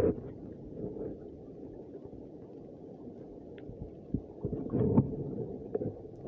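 Muffled underwater sound picked up by a submerged camera: a low, dull rumble with a few soft knocks, the loudest about five seconds in.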